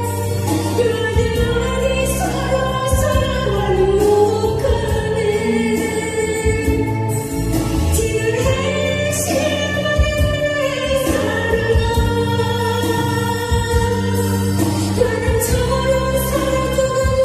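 A woman singing a Korean trot song into a handheld microphone over instrumental accompaniment, her voice holding long notes with vibrato.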